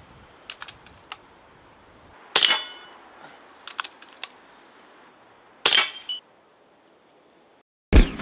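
FX Dreamline .22 PCP air gun, held stockless like a pistol, fired twice about three seconds apart. Each sharp report is followed by brief ringing and comes after light clicks of the side lever being cycled to load the next pellet. A sudden loud bang comes near the end.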